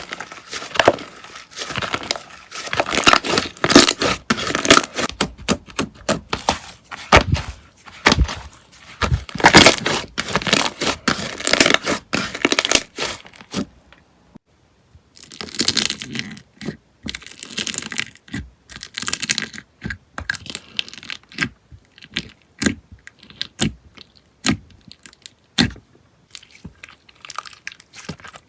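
Hands squishing and stretching slime close up: a dense run of sticky crackles and pops that stops for about a second midway, then sparser pops.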